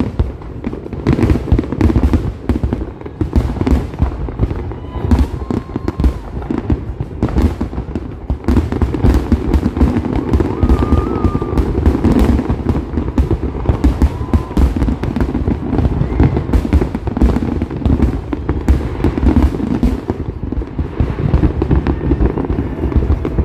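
Large display fireworks going off in a dense, continuous barrage of rapid, overlapping bangs and booms.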